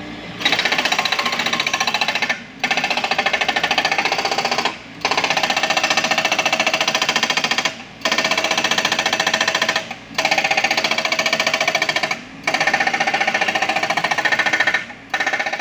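Hydraulic breaker on a Komatsu PC78US mini excavator hammering rock in rapid strokes. The hammering comes in runs of two to three seconds, broken by brief pauses as the chisel is repositioned.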